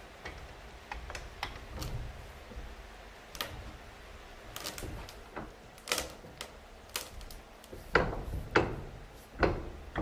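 Irregular sharp knocks and clicks, with three heavier thumps near the end.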